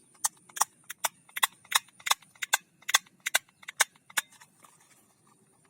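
Plastic toy shotgun clicking repeatedly, about three sharp clicks a second, stopping a little over four seconds in.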